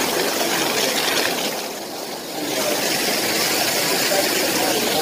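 Massage-pool waterfall spouts pouring onto the pool surface, a steady rushing splash that dips briefly about two seconds in.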